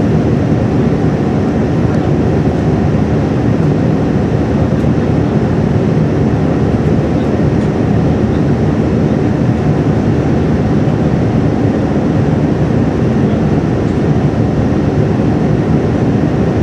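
Boeing 787-9 cabin noise at a window seat beside the engine: a loud, steady low rumble of jet engine and rushing air, with no changes.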